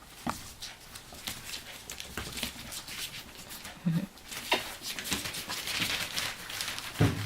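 Three-week-old Cairn terrier puppies scuffling and scratching about, with scattered small taps and clicks and a stretch of rustling about five seconds in.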